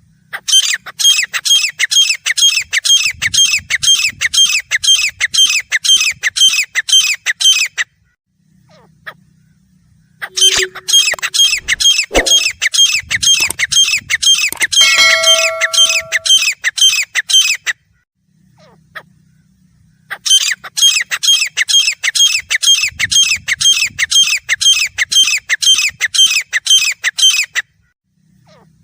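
Grey francolin calling: quickly repeated high, harsh notes, about three a second, in three bouts of roughly seven seconds each, with short pauses between them.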